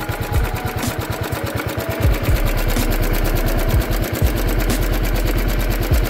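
Single-cylinder motorcycle engine running, its firing pulses making a rapid, even beat.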